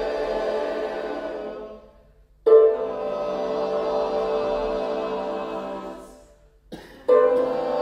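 Choir singing long held chords, each entering together and slowly fading away. One chord dies out about two seconds in, the next enters sharply half a second later and fades by about six and a half seconds, and another begins about seven seconds in.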